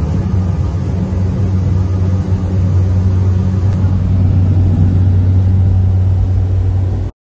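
Light aircraft's engine and propeller droning steadily, heard from inside the cabin, growing a little louder about halfway through and cutting off suddenly near the end.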